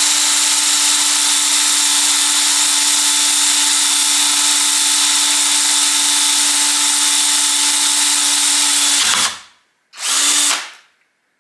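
Power drill running at one steady speed, drilling a hole through a magnesium chainsaw cover, for about nine seconds. It stops, then runs once more briefly near the end.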